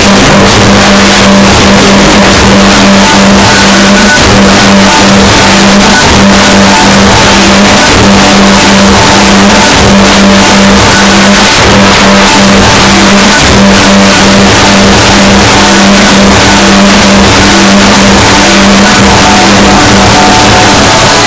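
Loud dance music from a nightclub sound system, heavily distorted by an overloaded recording. A droning bass note is broken by short gaps under a steady beat.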